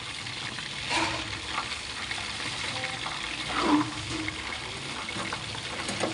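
Chicken wings frying in hot oil in a pan, a steady sizzle, with two louder clatters of the utensil against the pan about a second in and near four seconds.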